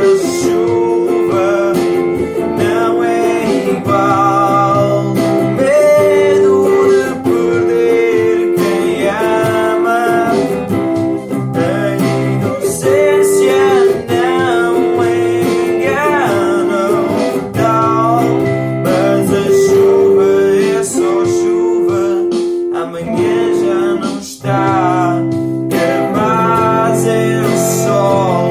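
Acoustic guitar music, picked and strummed, with a melody line that wavers in pitch above held notes.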